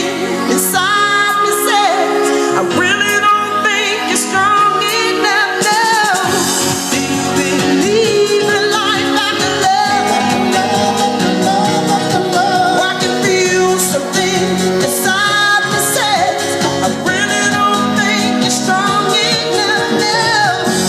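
A song playing: a singing voice over instrumental accompaniment with a steady beat.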